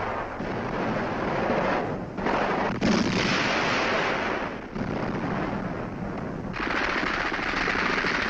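Heavy automatic gunfire in a dense, continuous rattle of overlapping bursts. It breaks off briefly about two seconds in, eases around the middle, and grows heavier again near the end.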